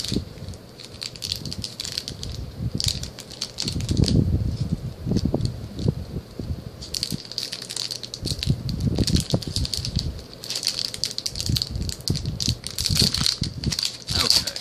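Trading card booster pack wrapper crinkling and tearing as it is worked open by hand, in irregular bursts of crackle and rustle.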